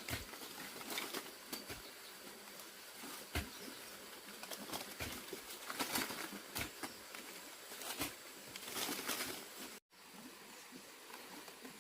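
Irregular light knocks and clicks over rustling, as from handling and working objects. The sound cuts out completely for a moment a little under ten seconds in.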